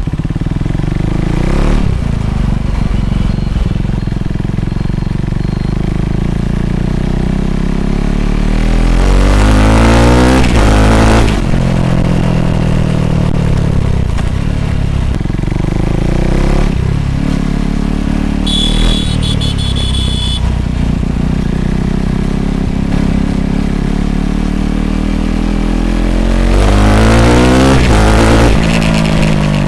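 KTM RC 390's single-cylinder engine running through a replica Kurlapovic aftermarket exhaust, with the mic close to the exhaust. It revs up with a rising note about ten seconds in and again near the end, falling back as the throttle is rolled off. A high steady tone with overtones sounds for about two seconds midway.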